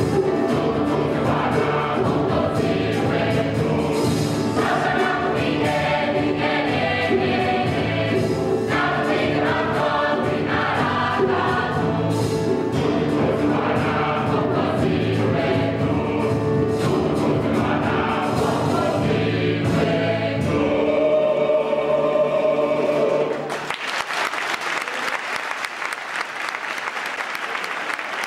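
Gospel choir singing with a band of piano, bass and drums keeping a steady beat. The song ends on a held chord, and a few seconds before the end the audience breaks into applause.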